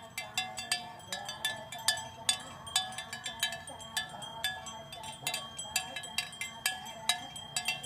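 Cowbells on cattle clanking irregularly, several strikes a second, each ringing briefly.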